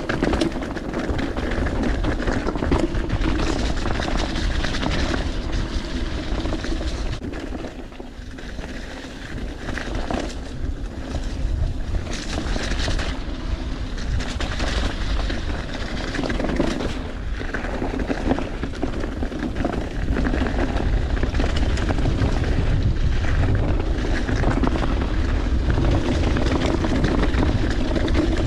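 Mountain bike rolling over rough, rocky trail: heavy wind rumble on the microphone, tyres crunching and the bike rattling and knocking over bumps.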